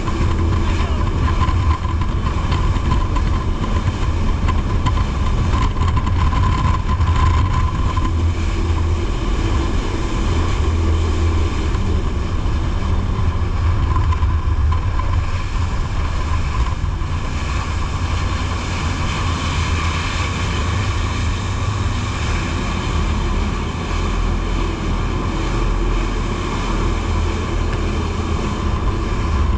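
Jet boat's engines running steadily under way, a low drone with the rush of water along the hull.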